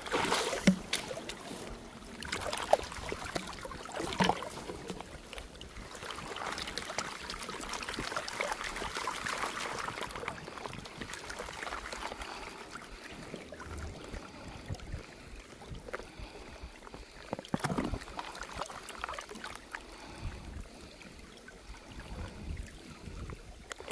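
Water sloshing and swirling in a plastic gold pan as sand and gravel are washed out in a shallow stream, with a few knocks in the first few seconds.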